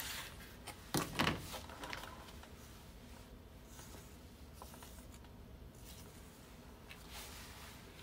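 A short knock or clatter about a second in, then faint room tone.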